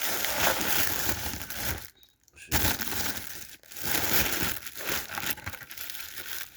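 Takeout packaging crinkling and rustling as it is handled, in three bouts with short pauses between them, fading near the end.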